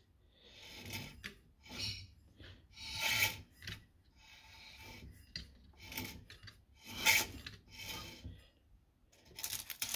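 A series of short scratchy rubbing and rasping noises, about a dozen, each lasting under a second, with quiet gaps between them.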